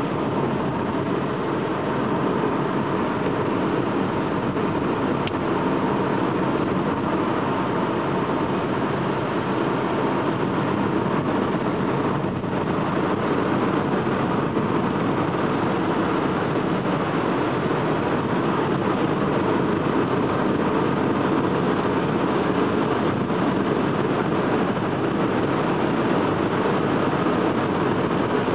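Steady drone of a car's road and engine noise heard inside the cabin while driving.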